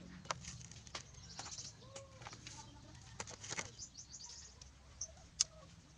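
Machete knocking and splitting thin bamboo strips: scattered sharp clicks and knocks. A chicken gives a short cluck about two seconds in.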